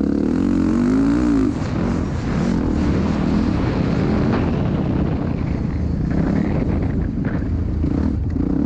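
Motocross dirt bike engine running hard under the rider, its pitch swinging up and down as the throttle is worked. About a second and a half in it drops a little in level and runs on rougher and noisier.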